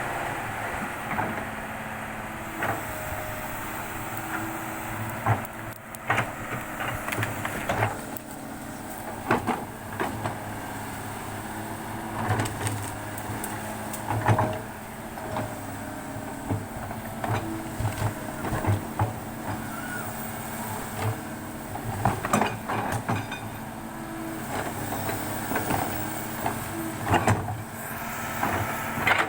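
Excavator's diesel engine running steadily, with many irregular knocks and clanks over it.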